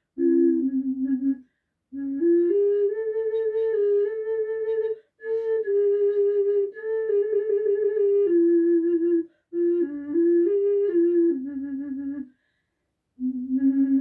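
Three-hole double ocarina, the 'Cicada', playing a slow melody with both chambers sounding together as two voices. The notes step between pitches, in short phrases with four brief gaps.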